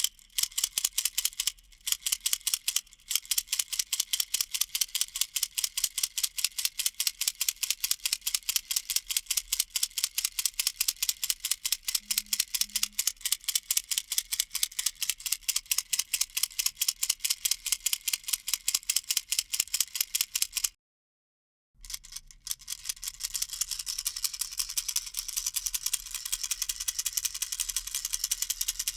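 A baby rattle (a knocker-type 'kolotushka' rattle) shaken rapidly and steadily, giving a fast, even run of crisp, dry clicks. Near the end it cuts out completely for about a second, then resumes as a denser, more continuous rattle.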